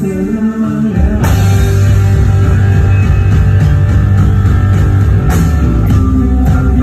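Rock band playing live on stage through the PA. A held chord comes first, then about a second in the full band comes in loud with drum kit, bass and electric guitar, marked by a cymbal crash, with another crash later.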